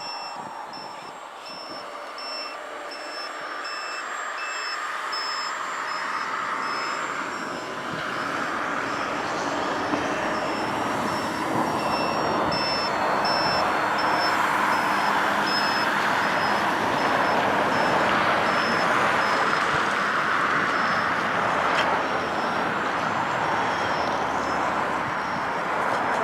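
A steady rushing noise that grows louder over the first half, with a high electronic beep repeating in short pulses above it.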